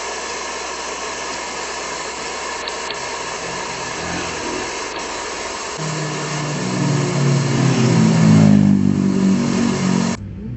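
Motorbikes approaching and passing the parked truck, their engines swelling from about six seconds in to a peak near the end, then cutting off suddenly. Before that, a steady hiss.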